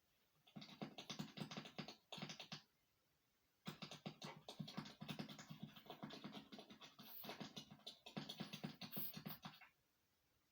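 Rapid scratching in two runs: a short one of about two seconds, then after a pause a longer one of about six seconds.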